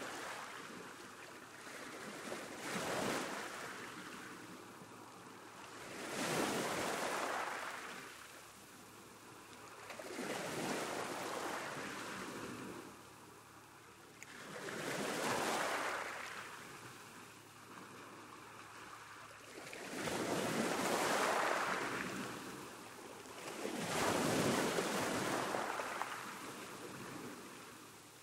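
Sea waves breaking on a beach, the surf swelling and falling away in a slow rhythm, about one wave every four to five seconds.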